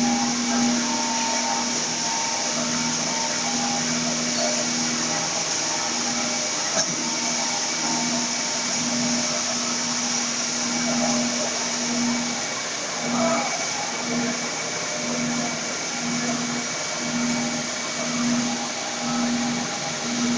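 Sawdust briquetting plant machinery running: a steady loud hiss of blower fans and airflow, with a motor hum that pulses about once a second in the second half.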